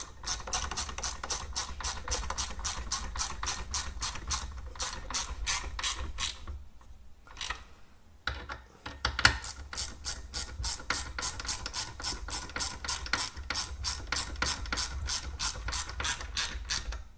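Hand ratchet clicking at about five clicks a second while driving self-tapping screws into plastic fan mounts, the screws cutting their own thread. There are two runs of clicking with a short break between them about seven seconds in.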